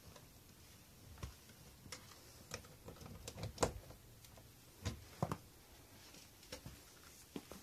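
About a dozen irregular clicks and light knocks, spaced unevenly and loudest in the middle, like small objects being handled.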